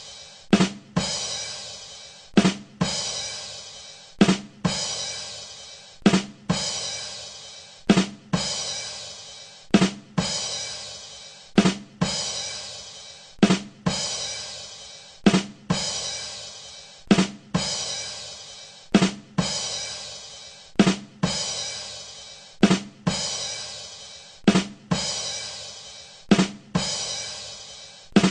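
The 'ba dum tss' rimshot sting on a drum kit, looped: two quick drum hits followed by a cymbal that rings and fades, repeating about once every two seconds.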